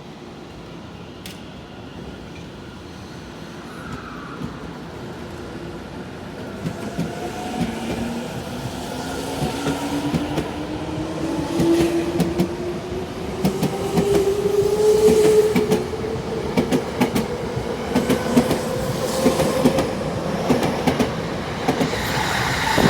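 Tozai Line electric train gathering speed: its traction motors give a whine that climbs steadily in pitch. It grows louder, with clicks of the wheels over rail joints coming more and more often in the second half.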